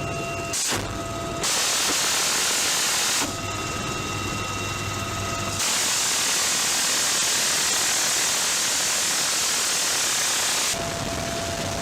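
M134 minigun firing in three bursts over a helicopter's steady running: a brief one just under a second in, one of about two seconds, then a long one of about five seconds. Each burst is a continuous hissing buzz, the rounds too fast to hear singly.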